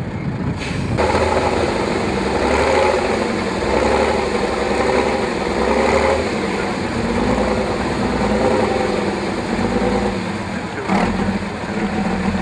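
Praga V3S six-wheeled trial truck's engine labouring under load on a steep sand-pit climb, its revs rising and falling. A sharp knock near the end.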